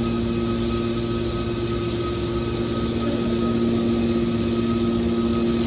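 Hydraulic metal baler running: a steady machine hum with a few constant tones over a noisy background.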